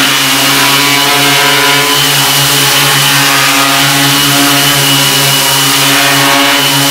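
Quadcopter's four brushless motors and propellers running steadily in a hover, a loud multi-tone buzz and drone with a high whine over rushing prop wash. Indoors, its own downwash stirs up strong turbulence around it.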